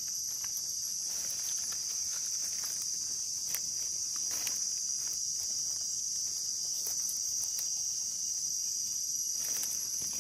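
A steady, high-pitched drone of insects, with soft rustles and crackles of dry leaf litter as a hand picks mushrooms from it.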